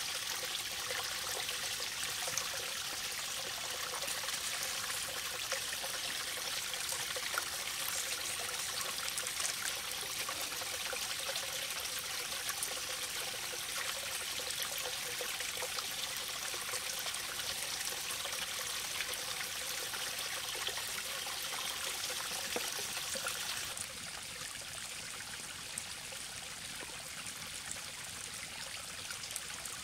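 Small stream trickling steadily over rocks, with faint small clicks from handling; the water sound drops slightly in level about three-quarters of the way through.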